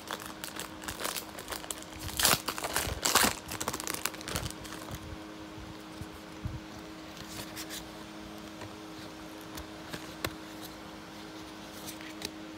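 Foil Pokémon booster pack wrapper being crinkled and torn open, loudest in the first few seconds, then only a few faint rustles and clicks. A steady low hum runs underneath.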